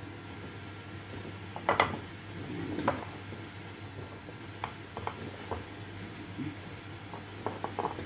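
A metal spoon clinking and scraping against a glass bowl as flour is stirred, in irregular clinks, with the loudest about two seconds in and a quick run of small clinks near the end.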